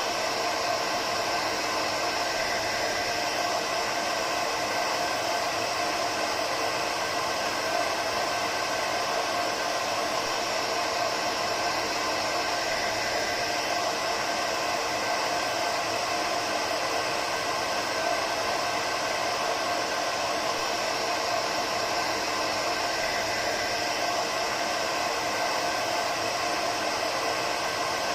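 Hair dryer running steadily: an even rush of air with a steady whine from the motor, unchanging in level throughout.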